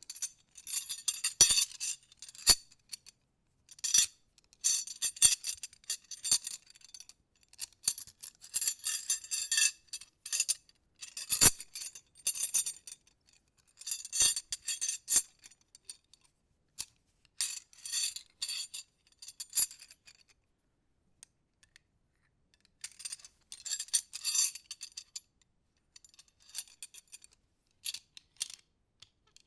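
The chained-together metal horseshoes of a horseshoe puzzle being fidgeted with, without the ring, clinking and jangling against each other and their chain in irregular bursts with short pauses. There are a few sharper single clicks and a longer lull past the middle.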